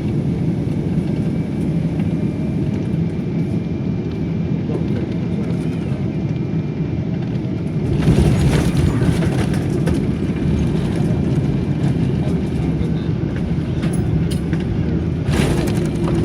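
An airliner landing: a steady low rumble of engines and airflow with a faint steady whine. About eight seconds in it swells into a louder rush for a couple of seconds, and there is a shorter rush near the end.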